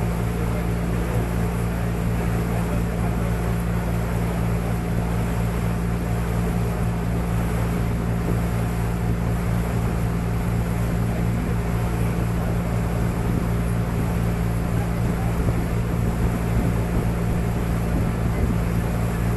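Resort boat's engine running steadily while the boat cruises, a constant low drone under a steady rush of water and wind noise.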